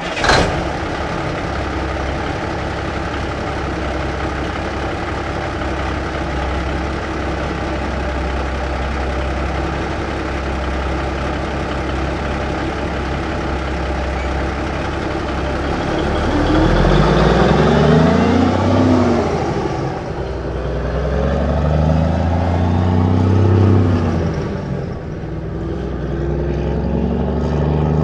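A 1954 big-rig truck's engine, heard from outside, fires up and idles steadily, then pulls away with the revs climbing and dropping twice as it shifts gears.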